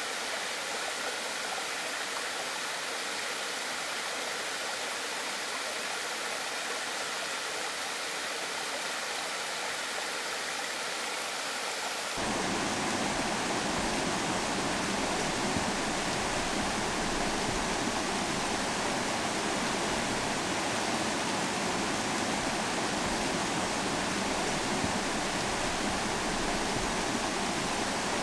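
Rushing water of a mountain stream cascading over rocks, a steady rush that becomes louder and deeper about twelve seconds in.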